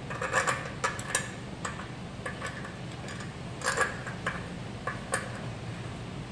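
Scattered light metallic clicks and clinks as the bolted mounting bracket on the back of a metal satellite dish is handled, coming in small clusters, over a steady low hum.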